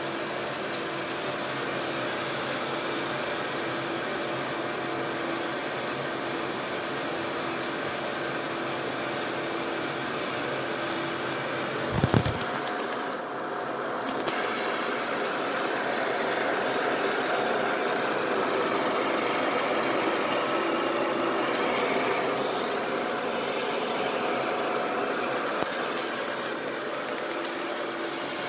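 Broan/NuTone ceiling exhaust fan running steadily: a motor hum with a steady rush of air. A single brief thump comes about twelve seconds in.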